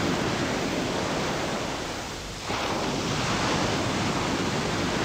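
Strong wind blowing, a steady rushing noise that sags briefly about two seconds in and returns abruptly.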